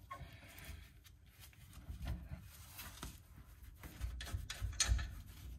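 Faint scraping and light metallic ticks of a hand wrench turning an 11/16 bolt out of a trailer's brake backing plate, with a few sharper clicks in the second half.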